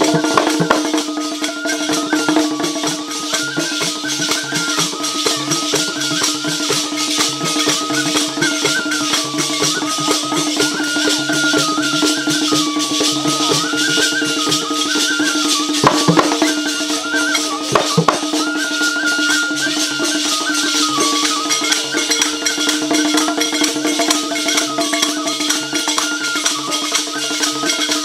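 Bundeli Rai folk music: a bansuri flute plays a repeating stepwise melody over a steady held tone, while a barrel drum and rattling percussion keep a fast, steady rhythm.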